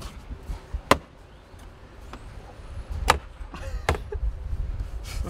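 Three sharp clacks from handling a petrol pump nozzle and a car's fuel filler cap, over a low outdoor rumble.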